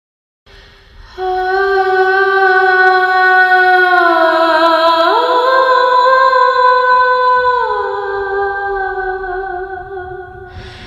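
A voice singing long, wordless held notes: one steady note, a step up about five seconds in, then back down near eight seconds, fading toward the end.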